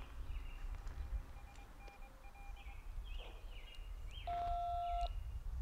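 Yaesu FT-65 handheld transceiver sending a DTMF keypad tone near the end, a steady two-pitch beep of just under a second for the digit 2. It is the command for a Byonics PicCon hidden-transmitter controller to switch off its remote transmitter.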